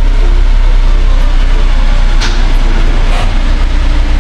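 A small car's engine running with a loud, steady low rumble as the lowered Daihatsu Esse rolls across a side-slip tester, with two sharp clacks about a second apart near the middle.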